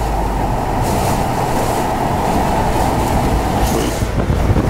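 Hurricane-force wind buffeting the microphone, with driving rain: a loud, steady rumble that turns more uneven and gusty about four seconds in.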